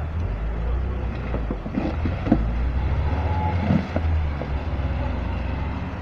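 Off-road SUV's engine working hard in low gear as it drives through a muddy marsh and into brush, with several sharp knocks and cracks over it, the loudest a little over two seconds in.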